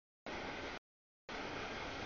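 Two short stretches of steady rushing noise, each starting and cutting off abruptly, with dead digital silence between them: the background track chopped into pieces by edits.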